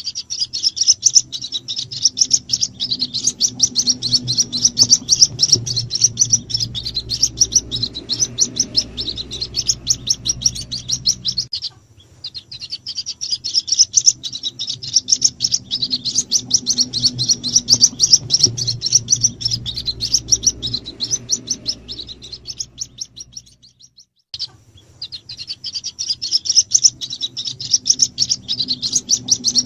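White-breasted waterhen chicks cheeping rapidly and without let-up, high-pitched, as a lure call to draw in the parent birds. The cheeping breaks off briefly twice, about 11 and 24 seconds in.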